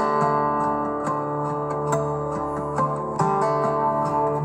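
Background music: plucked and strummed acoustic guitar with notes held ringing.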